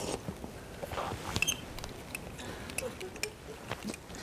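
Sparse light clicks and scrapes of a metal spoon against raw oyster shells, as sauce is spooned onto the oysters and they are eaten.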